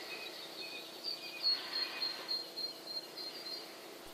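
Small birds chirping: a busy run of short, high notes that thins out near the end, over a faint steady hum.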